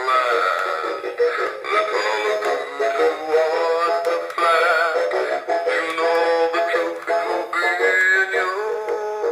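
Sound Tactics rock-along singing golfer animatronic toy playing its song: a recorded vocal over music, thin and without bass, from the toy's small speaker.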